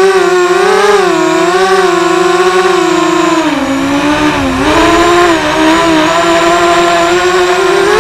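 Small 250-size FPV racing quadcopter's brushless motors and propellers whining up close, pitch wavering with the throttle and dipping lower around the middle before climbing again.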